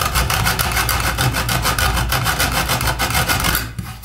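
A bare hacksaw blade, worked by hand, sawing through a seized bolt with quick, even back-and-forth rasping strokes that stop near the end. The bolt is being cut off because it is corroded fast and will not unscrew.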